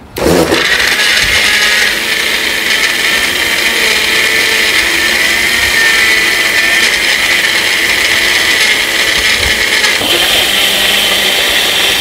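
A NutriPro 500-watt personal smoothie blender switched on and running continuously, blending chopped carrot and beetroot with a little water into a fine purée. Its whine steps up higher in pitch about ten seconds in.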